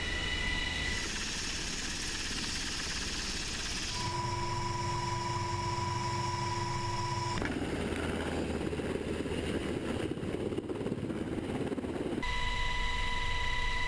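MH-60S Sea Hawk helicopter's twin turbine engines and rotor running: a steady loud drone with a constant whine. The tone changes abruptly several times, heard from inside the open cabin and then from the ship's deck as the helicopter hovers.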